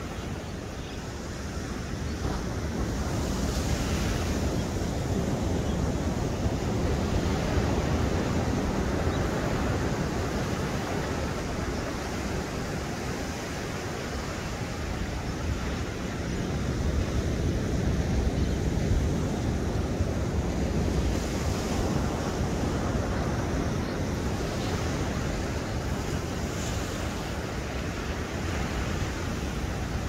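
Ocean surf breaking and washing on a beach, a continuous rush that swells and eases over several seconds at a time, with wind buffeting the microphone.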